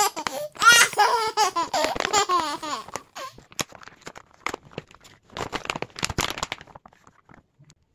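A high giggling, laughing voice for about the first three seconds. After that, a paper pastry box and a plastic bag crinkle and rustle in short crackles as they are opened and pulled back.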